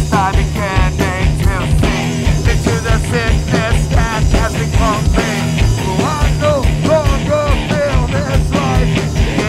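Live recording of a screamo/emo rock band playing: drums, bass and guitars with a singer's voice over them.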